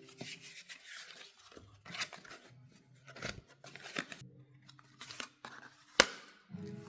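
Paper being cut, creased and rubbed by hand while folding ddakji tiles: scattered rustles and scrapes, with a sharp snap about six seconds in.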